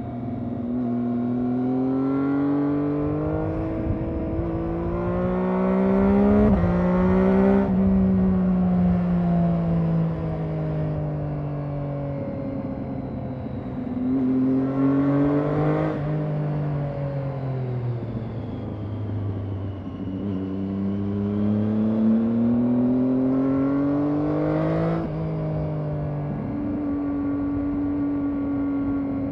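2012 Triumph Daytona 675R's inline three-cylinder engine, stock exhaust, revving up and down as the bike rides through bends, with several sudden jumps in pitch at gear changes.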